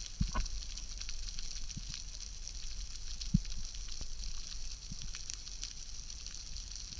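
Underwater ambience picked up by a camera in its housing: a steady fizzing crackle of many faint clicks, with a few short low thumps, the loudest about a third of the way in.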